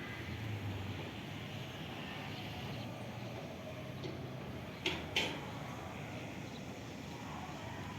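Steady background noise with two sharp knocks in quick succession about five seconds in.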